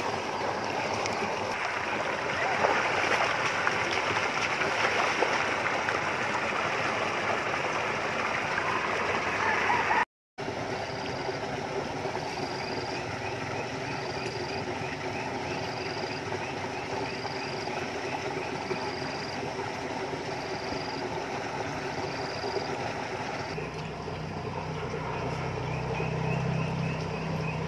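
Water splashing and churning as a big fish thrashes at the surface of a shallow pond. After a break, calmer outdoor ambience with a short high note repeating about once a second.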